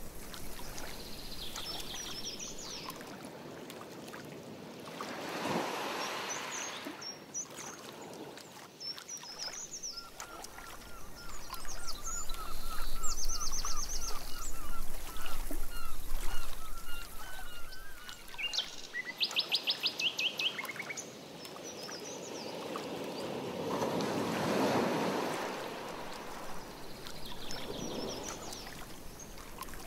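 Canoe paddle strokes swishing through the water a few times, with songbirds calling from the shore. The birds give quick high trills and, in the middle, a long run of short repeated chirps.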